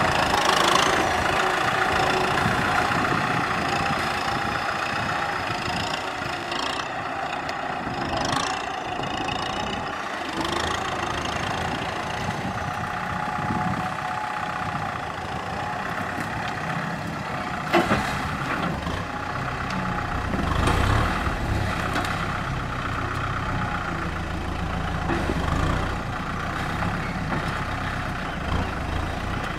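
Kubota M6040SU tractor's four-cylinder diesel engine running steadily as it works, with a sharp clack partway through and a deeper rumble in the later part.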